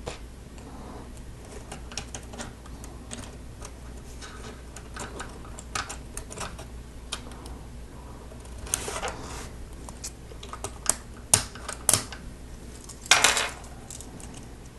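Plastic Lego Technic parts clicking and snapping together as they are fitted by hand, with light irregular clicks throughout. Two sharper snaps come about two-thirds of the way through, and there are short rattling spells of pieces being handled around the middle and near the end.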